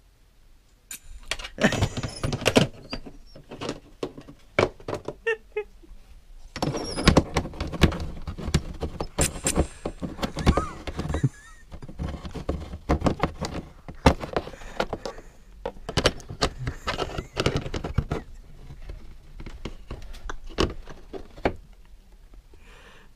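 A small dog biting and chewing at a plastic electronic keyboard: irregular bursts of clattering knocks and scrapes of teeth on the hard plastic casing, starting about a second in.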